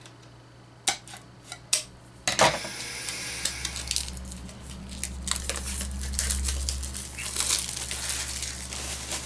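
A few sharp snips of scissors cutting the seal on a small metal blind-box canister. From about two seconds in comes a continuous run of metallic scraping, clinking and rattling as the tin is worked open and handled.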